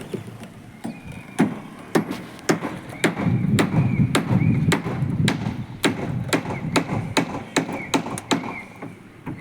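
Hammer striking in a steady run, about two to three blows a second, starting about a second in and stopping shortly before the end.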